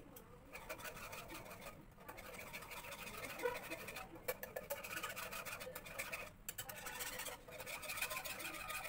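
Wire whisk scraping and swishing around a pan in rapid strokes, starting about half a second in, as milk is whisked into a butter-and-flour roux for white sauce.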